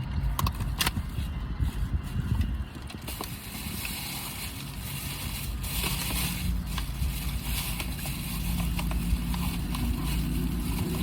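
Sounds of someone eating sticky mochi, scattered sharp mouth clicks and rustling, over a steady low rumble.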